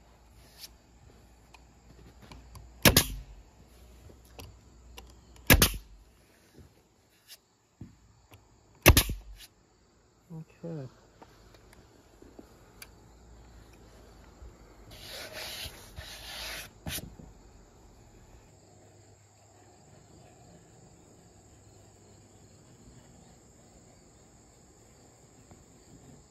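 DeWalt pneumatic nailer firing three nails through plywood into a wooden frame, sharp snapping shots about three seconds apart, then a rushing noise lasting about two seconds. Crickets chirr steadily throughout.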